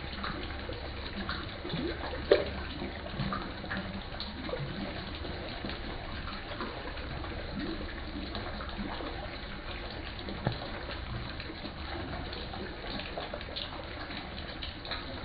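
Water in a tilapia and climbing perch pond: a steady wash of moving water with scattered small splashes and plops from fish at the surface, and one sharper splash about two seconds in.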